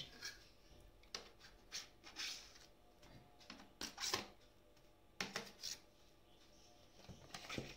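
Scattered soft scrapes and light knocks from a metal dough scraper being pushed into risen yeast dough in a plastic bowl, with the bowl's plastic lid being handled.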